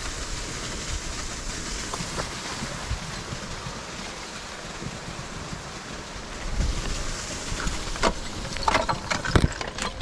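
Steady rushing noise on an ice climber's helmet-camera microphone, with sharp strikes of ice axes and crampons biting into waterfall ice, a couple about two seconds in and several near the end.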